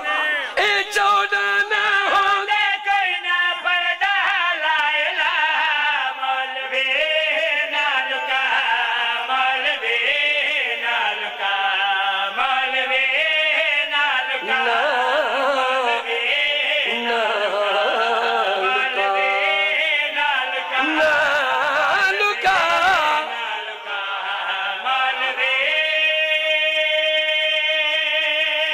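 Male voices chanting a Punjabi qaseeda, a devotional praise poem, in long ornamented melodic lines. Near the end one note is held steadily.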